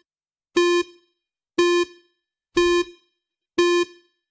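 Countdown timer sound effect for the last seconds: four short electronic beeps of the same pitch, one a second.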